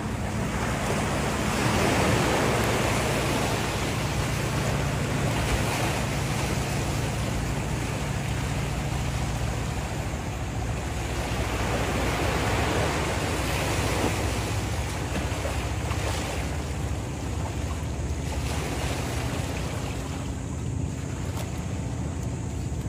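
Sea waves washing onto a sandy shore, a rushing that swells and eases every few seconds, with wind buffeting the microphone and a steady low hum underneath.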